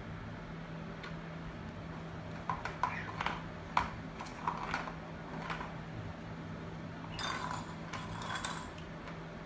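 A kitten batting the ball in a Catit Design Senses Speed Circuit: a run of light plastic clicks and knocks, then about a second and a half of the ball rattling around the plastic track near the end.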